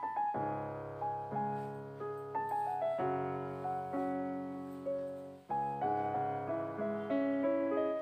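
Background piano music: notes and chords struck about once a second, each ringing and fading.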